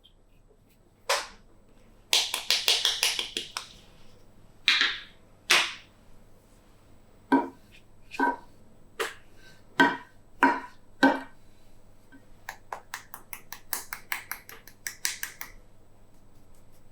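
Slime being pressed and worked by hand, giving sticky clicks, pops and crackles as air pockets burst. There is a dense crackling burst about two seconds in, then single pops, then a quick run of small clicks near the end.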